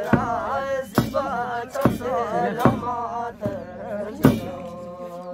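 Ritual chanting in a wavering melody, marked by the steady beat of a large handled frame drum struck a little more than once a second. Near the end the chant settles on a held note.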